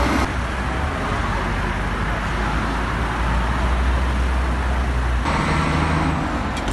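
Road traffic noise with a steady low engine rumble from vehicles running at the roadside. The sound changes abruptly about five seconds in, to a different mix with a steady low hum.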